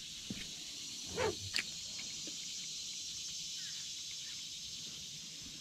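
Steady chorus of insects, an even high-pitched drone, with a few light knocks and a short squeak about a second in.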